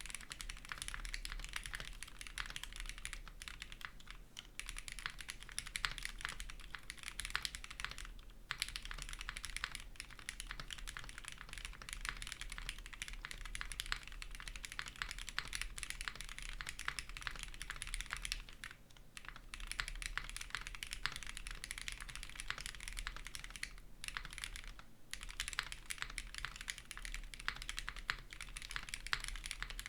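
Custom mechanical keyboard with lubed Gateron CJ linear switches in a polycarbonate plate and GMK keycaps being typed on quickly and continuously, the keystrokes running together, with a few brief pauses about 8, 19 and 25 seconds in.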